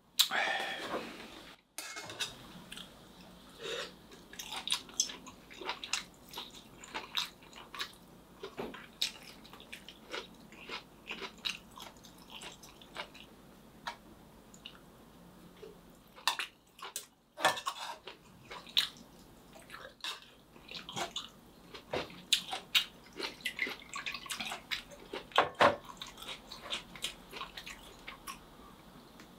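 A short splash of liquid poured at the start, then scattered clicks of metal tongs against a metal cup and small eating noises, including chewing.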